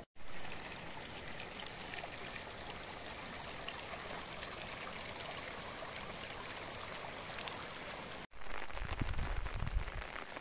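Steady rain falling, an even hiss dotted with fine raindrop ticks. After a cut near the end, a louder, uneven low rumble comes in under the hiss.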